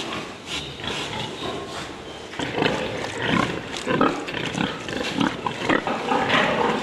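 Pigs in a piggery calling: a string of short, irregular calls, coming closer together from about two and a half seconds in.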